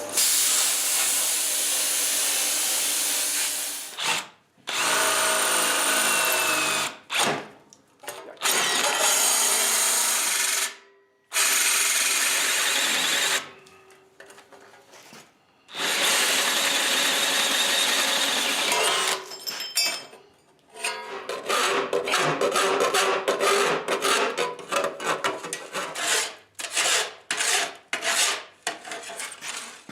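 Handheld power tool running in long bursts of several seconds that start and stop suddenly, then a quick series of short trigger bursts near the end.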